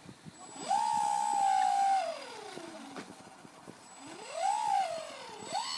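RC model Cessna 172 Skytrainer's motor and propeller whining as the throttle is worked: the pitch climbs sharply, holds for over a second as the loudest part, then slides down, followed by two shorter swells that rise and fall.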